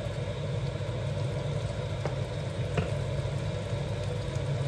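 Tomato sauce sizzling and simmering in a frying pan as it is stirred with a wooden spoon, over a steady low hum; the spoon knocks lightly against the pan twice, about two seconds and nearly three seconds in.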